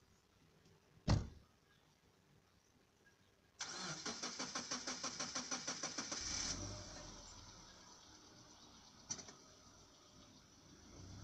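A single thump about a second in, then the tow car's starter cranks the engine with a fast, even chugging for about three seconds until it catches and settles into a steady idle. A short click comes near the end.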